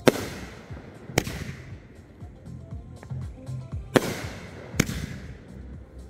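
Aerial firework shells bursting overhead: four sharp bangs, two close together at the start and two more about four seconds in, each trailing off in a fading hiss.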